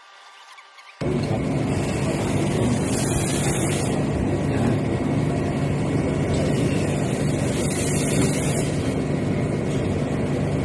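Steady machinery noise with a low hum, typical of a ship's engine room, starting abruptly about a second in; twice a brief hiss rises over it.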